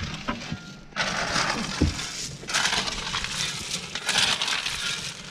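Gritty crunching and scraping of stones or gravel, in three bursts of about a second each, over a low steady hum.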